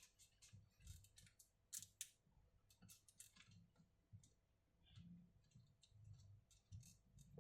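Faint, irregular small clicks and light taps from hands and tools working on a laptop's internal parts during a RAM and SSD upgrade.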